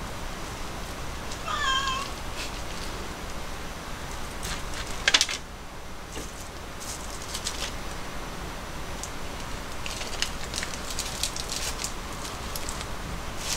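A cat meows once, briefly, about one and a half seconds in. After that come scattered clicks and crinkles of a plastic tray of nori sheets being handled, the loudest a sharp click about five seconds in.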